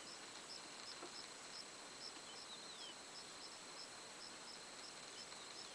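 Faint outdoor ambience: a steady hiss with a high, thin chirp repeating evenly about three times a second, and one short falling whistle about two and a half seconds in.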